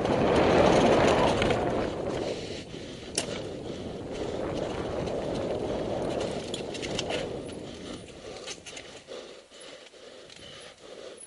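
Mountain bike ridden fast down a dirt trail: steady rush of tyre and riding noise with many short clicks and rattles from the bike over bumps. It grows quieter after about eight seconds.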